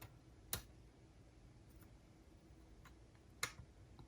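Two sharp clicks about three seconds apart, with a few fainter ticks between, from small parts and tools being handled on a MiniDisc player's transport as a gear is taken out; otherwise near silence.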